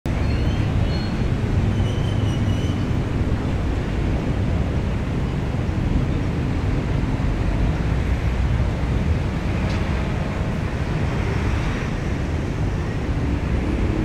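Busy city road traffic: a steady rumble of passing vehicles, with a few brief high squeaks in the first three seconds.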